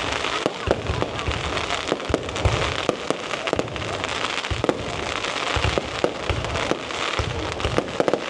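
Fireworks display: a dense run of sharp cracks and bangs over a steady crackling hiss, with repeated deep booms.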